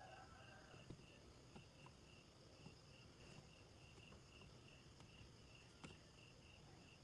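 Near silence, with a cricket chirping faintly and steadily, about three chirps a second, and a few small clicks.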